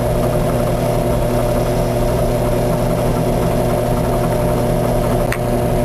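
Drill press motor running with a steady hum, spinning an official BSA Pinewood Derby wheel while a razor saw blade is held against its edge to thin the wheel. One brief click about five seconds in.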